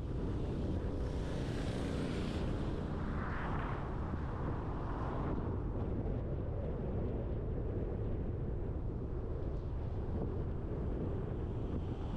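Steady low road and wind noise of a car driving, with a brief swell of higher hiss about two to four seconds in.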